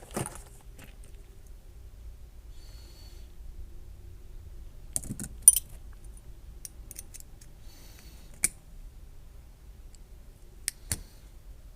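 Scattered sharp metallic clicks and clinks of an American Lock 1100 padlock's parts and small tools being handled while it is taken apart, around work on the retaining clip at the back of the core. The loudest clinks come about five and a half seconds in, with others near the start, about eight and a half seconds in and near the end.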